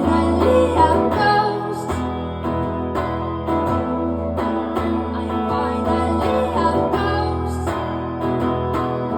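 Band music led by guitars over a steady beat, with a singing voice at times.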